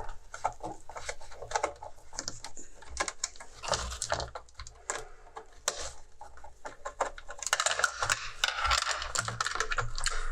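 Irregular clicks and knocks of hard casing parts and tools being handled while an electronic unit is taken apart by hand, busier with scraping and rattling in the last few seconds.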